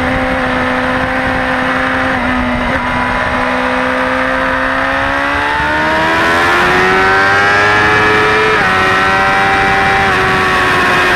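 Suzuki GSX-R600 K4 inline-four engine at speed, holding a steady note, then revving up as the bike accelerates hard, with a sudden drop in pitch at an upshift about eight and a half seconds in. Wind noise rushes underneath throughout.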